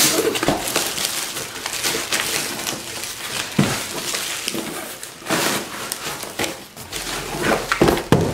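Handling noise from unpacking: the plastic wrap around a stack of clear plastic shoe-box panels crinkles and the cardboard box flaps rustle and scrape as the bundle is worked loose. There are a few sharper knocks near the end as it is pulled out of the box.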